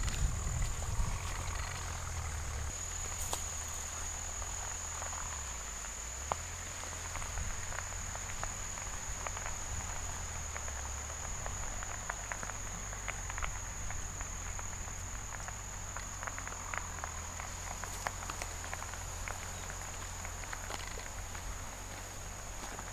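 An insect calling in one steady, unbroken high-pitched note, over a low rumble, with faint scattered light ticks.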